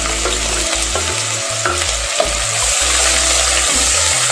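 Chopped onions frying in hot oil and ghee with whole spices in a pressure cooker, a steady sizzle as they are stirred.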